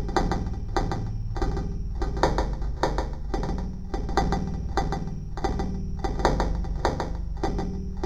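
Witch house music: an electronic track with a steady beat of sharp percussive hits, about three a second, over sustained low tones.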